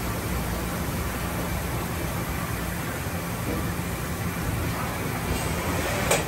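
Doosan NHP5000 horizontal machining center running: a steady machine hum with a low drone as the spindle head moves. Near the end a hiss builds and there is a sharp clack as a panel inside the enclosure slides open.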